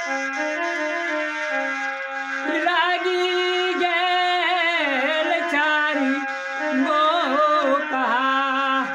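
A man singing a samdaun, a Maithili bridal-farewell folk song, in a solo voice with a wavering, ornamented melody. The voice comes in about two and a half seconds in, over an instrumental melody of held notes that step in pitch.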